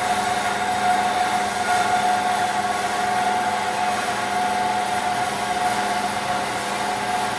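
Horizontal bandsaw running through a cut in metal stock, a steady high whine over constant motor hum.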